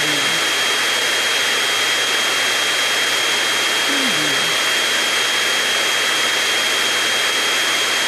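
Indoor vacuum cleaner running steadily at full power: a continuous whooshing hum with a thin high whine over it.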